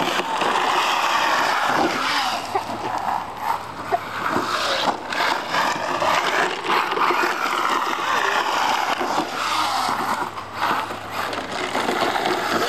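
Brushless electric motor of an HPI WR8 Flux 1/8-scale RC rally car whining up and down in pitch as the throttle is worked, over the steady hiss of its tyres scrabbling on loose gravel.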